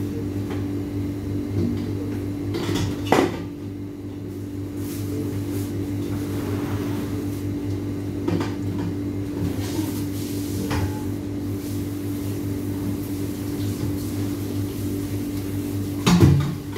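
Binangkal dough balls deep-frying in a wok of oil with a faint sizzle, over a steady machine hum. A sharp click comes about three seconds in, and a louder knock comes near the end.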